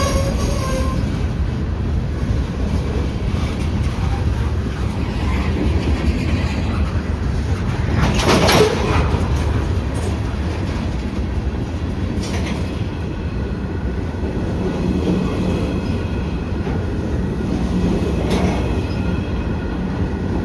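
Railcars of a passing freight train rolling by with a steady low rumble and wheel clatter. A train horn's note cuts off about a second in, and a short, loud burst of noise rises out of the rumble about eight seconds in.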